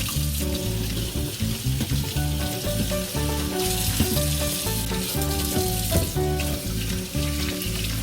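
Background music with a steady bass beat, over food sizzling in a hot frying pan.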